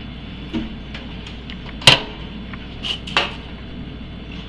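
Toaster oven door and tray handled: four short clicks and knocks as the door is opened and shut and the apple is set inside, the loudest about two seconds in.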